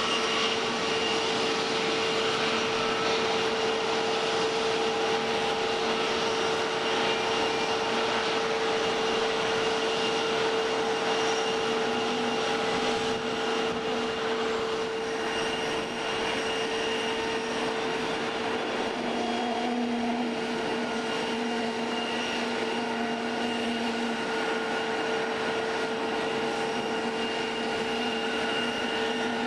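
Jet engines of a taxiing Airbus A321 airliner running at low taxi power: a steady whine with one strong held tone over a constant rushing noise. A fainter, lower tone comes and goes in the second half.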